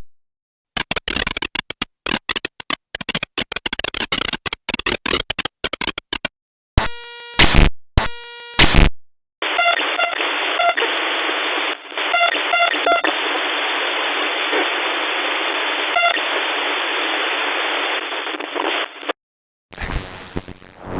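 A run of separate digital glitch sound effects. First comes a rapid stutter of chopped noise lasting about five seconds, then three short buzzing electronic tones. After that, about ten seconds of static hiss with a few beeping blips cuts off suddenly, and another glitch begins near the end.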